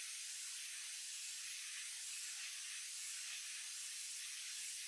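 Compressed-air paint spray gun spraying paint: a steady, even hiss of air and atomised paint. It is a test spray onto a card to check the pattern after the paint feed has been opened up.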